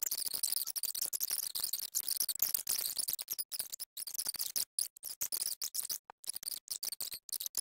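A knife whittling a small square pine stick: a quick run of short, dry, hissy shaving strokes, one after another with brief pauses between them.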